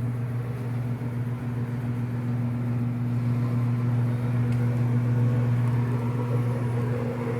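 Kenmore 800 washing machine running its spin and drain, a steady electric motor hum that does not change. The freshly unclogged drain pump is working and pumping the water out.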